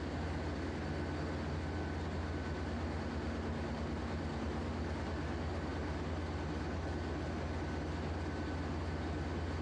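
Steady drone of a ship's engine-room machinery: a deep, unchanging hum with a faint steady high whine riding over it.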